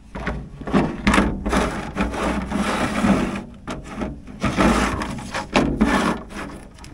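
Plastic battery box being slid and scraped across the canopy floor, in several rough scraping bursts as it is shuffled into position.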